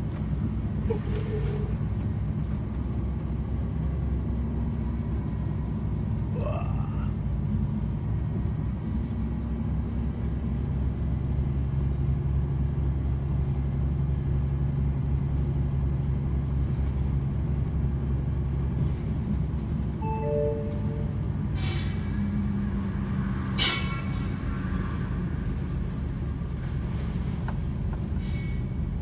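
Articulated truck's diesel engine pulling up a climb in a steady low drone. About two-thirds of the way through come two short, sharp hissing clicks.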